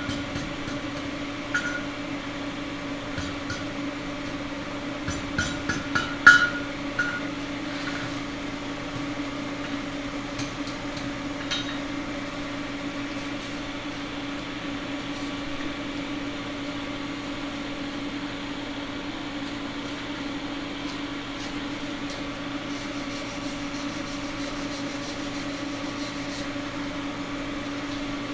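Steady motor hum with a fixed pitch, with a few light metal taps and clinks in the first dozen seconds, the loudest about six seconds in.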